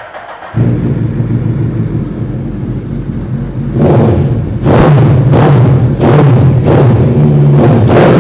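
Sportbike engine breathing through a loud Brocks aftermarket exhaust. It catches about half a second in and idles steadily, then from about four seconds in it is revved in quick throttle blips, roughly three every two seconds.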